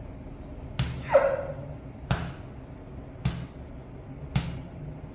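Four sharp slaps about a second apart. The first is followed straight away by a brief sound falling in pitch.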